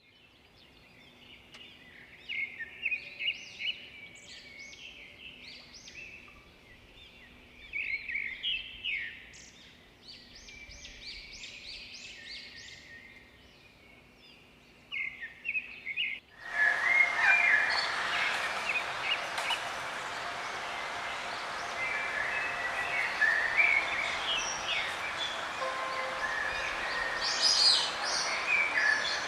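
Songbirds chirping in short, scattered calls. About sixteen seconds in it cuts abruptly to a busier, hissier recording of many birds singing at once.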